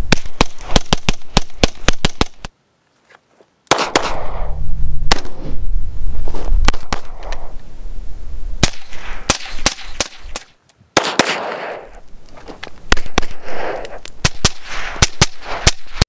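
Rapid semi-automatic fire from a suppressed AR-style rifle, several shots a second in quick strings, each with a short echo. The fire stops briefly about two and a half seconds in and again about ten seconds in.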